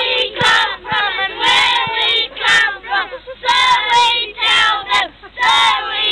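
A team of young boys singing a victory song together in unison, loud, in short phrases with brief breaks between them.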